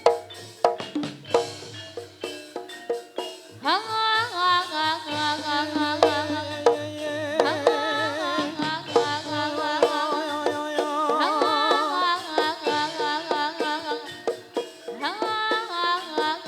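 Javanese jaranan dance music: hand-drum strokes at first, then about four seconds in a sustained melody with wavering pitch and upward slides joins over the drumming.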